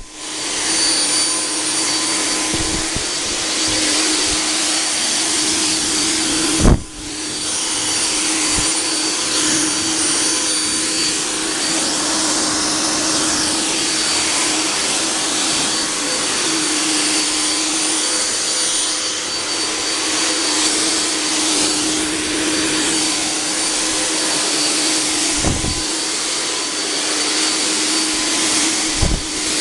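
Cold-fog (ULV) generator's blower motor running steadily, a loud whooshing hiss as it sprays insecticide mist. A single sharp knock about seven seconds in, with a brief dip in the blower's sound.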